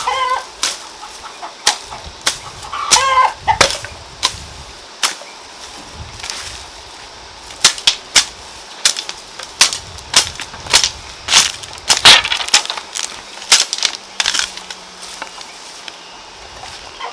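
A chicken clucking, once right at the start and again about three seconds in, among many sharp, irregular clicks or snaps that keep coming throughout.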